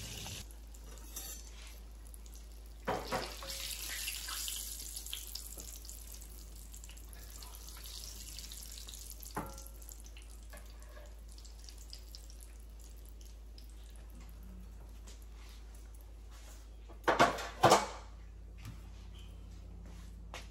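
Battered fish pieces frying in hot oil in a cast-iron skillet, a steady sizzling hiss, with a few knocks of utensils against the pan. Two loud clatters of kitchenware come near the end.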